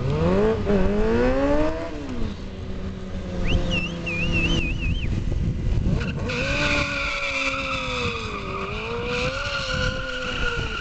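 BMW stunt motorcycle's engine revving up, its pitch climbing in the first couple of seconds. From about six seconds in, the rear tyre squeals steadily over a wavering engine note as the bike is spun in circles on the tarmac, laying rubber.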